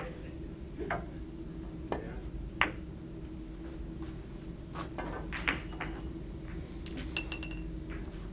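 Billiard balls clicking on a five-pin billiards table: a handful of sharp, separate clicks, the loudest about two and a half seconds in, and a short ringing clink near the end, over a steady low hum.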